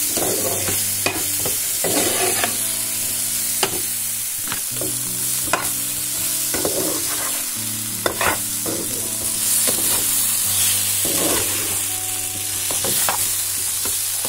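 Potato chunks sizzling as they fry in oil in a non-stick pan, stirred with a metal spatula that scrapes and clicks against the pan every second or so.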